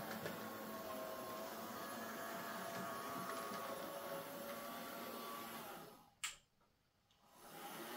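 Hornby J15 OO gauge model locomotive running on DC power with a whiny, whirring motor and gear sound, typical of sticky or dried-out lubrication from lack of use. About six seconds in the sound fades away with a single sharp click, then returns about a second later.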